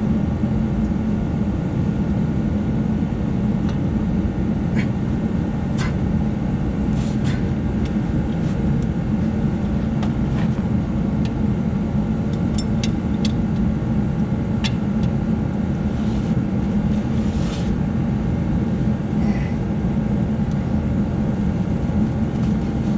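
A steady low mechanical drone, with scattered sharp metallic clicks and taps from hand tools working on metal.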